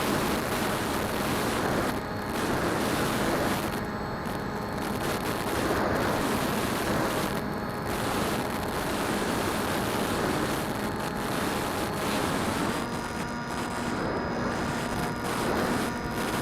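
Phantom quadcopter's motors and propellers heard from an onboard camera: a steady hum with several held tones under a heavy rush of wind on the microphone. About twelve seconds in the motor tones change pitch, as the throttle changes.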